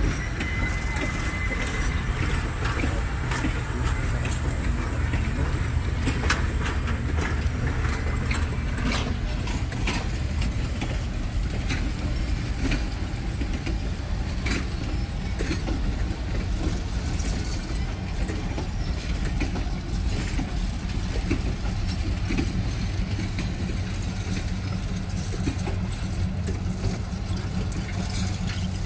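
Passenger train cars rolling slowly past: a steady low rumble of wheels on the rails, with scattered clicks and knocks from the wheels and couplers.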